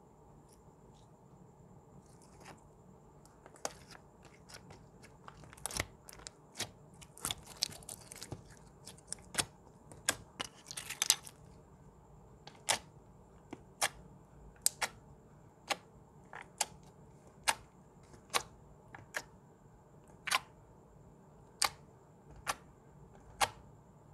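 Clear glitter slime worked by fingers, making sharp wet pops and clicks as air pockets burst. There is a busy run of pops and crackles in the middle, then single pops about once a second as fingertips press into it.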